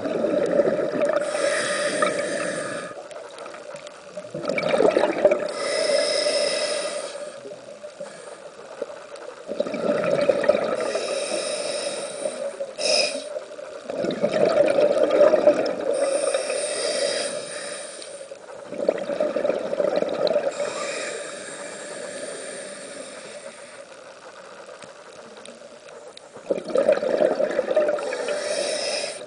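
Scuba diver breathing through a regulator: a hiss with each inhale and a burst of bubbling exhaust with each exhale, repeating about every five to six seconds.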